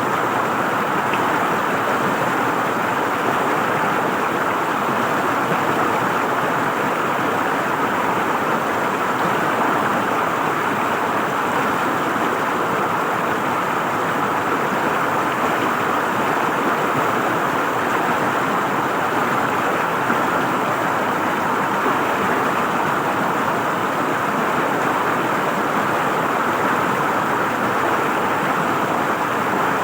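River water flowing and gurgling over rocks, a steady even rush.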